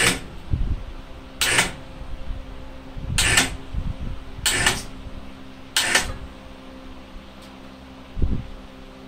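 Ratchet strap being cranked tight: five sharp ratcheting clicks about a second and a half apart, over a steady hum, with a dull thump near the end.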